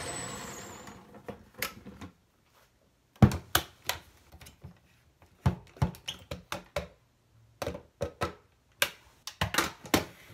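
A blender motor winding down, its sound fading over about two seconds. Then a run of sharp plastic clicks and knocks as the blender pitcher is lifted off its base and its lid unlatched and pulled off.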